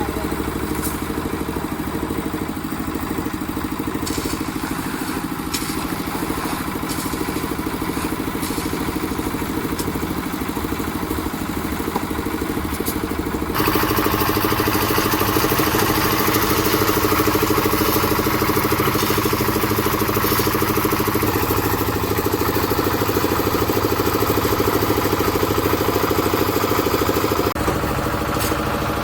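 Concrete mixer's engine running steadily, with light clatter in the first half. About halfway through it suddenly gets louder and brighter, then drops back near the end.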